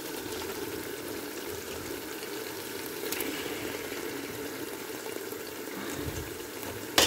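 Curry masala of fried onion, tomato and spices simmering steadily in a pot, with a light knock about three seconds in and a sharp knock at the very end.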